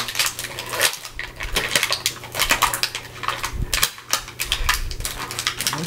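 Hands opening and handling a small eye cream package: a quick, irregular run of clicks, taps and crinkles.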